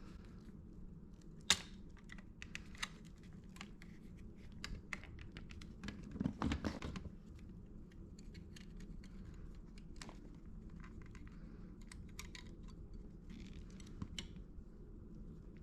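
Scattered small clicks and taps of parts being handled, with a sharp click about 1.5 seconds in and a short cluster of louder knocks around the middle.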